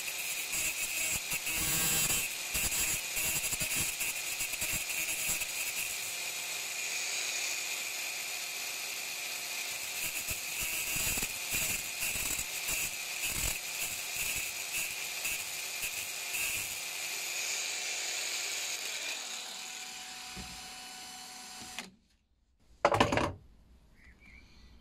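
Angle grinder running with its disc grinding down the shoulder of a steel impact screwdriver bit, a steady high-pitched grinding noise. Near the end the grinder winds down with a falling pitch and stops, followed by one short loud burst of noise.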